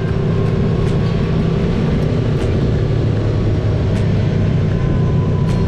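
Side-by-side UTV engine running steadily under way, with wind and ground noise and a few faint ticks and rattles.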